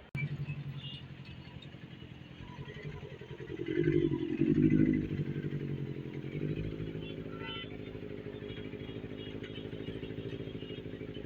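Benelli 600i inline-four motorcycle engine with an aftermarket exhaust, cutting in suddenly, revved up about four seconds in, then settling to a steady idle.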